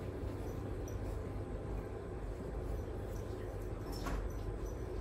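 Domestic cat purring steadily while it is stroked and scratched on the head and cheeks, with a faint click about four seconds in.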